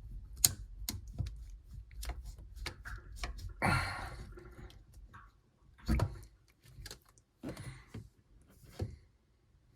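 Irregular clicks and knocks of plastic parts being worked loose from the drain in the bottom of a Bosch dishwasher. A short noisy rush comes about four seconds in.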